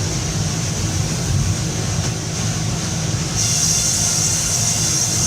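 Sawmill machinery running with a steady low rumble and a high, steady whine that gets louder a little past halfway through.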